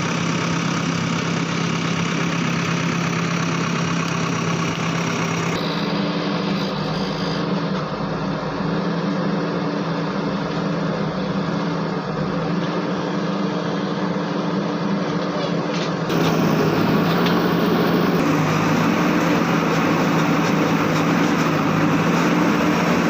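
Diesel engine of a JCB backhoe loader running steadily during digging and loading work. Its note changes abruptly about 6 seconds in and again about 16 seconds in.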